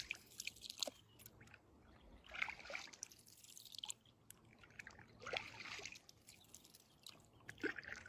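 Faint water splashes and drips, coming in soft bursts every second and a half to two seconds.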